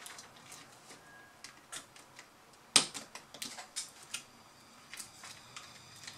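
Scattered small plastic clicks and taps as hands fit parts and cables into a Lenovo B50-80 laptop's base, with one sharper click about three seconds in.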